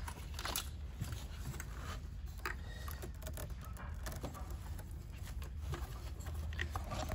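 Scattered small plastic clicks and rattles as engine wiring connectors are unclipped and pulled off by hand, over a steady low hum.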